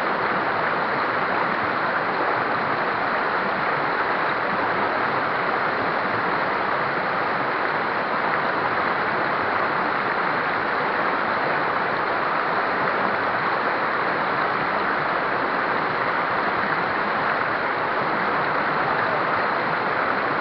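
Fast-flowing river water rushing steadily over rapids, a constant, unbroken roar of water.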